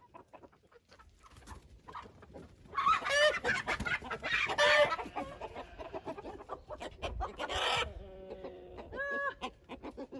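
Young laying hens squawking loudly in alarm as they are chased to be caught, a burst of calls lasting about five seconds starting near three seconds in, then a few shorter calls near the end.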